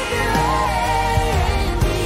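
Background music: a song with a held melody line over a beat.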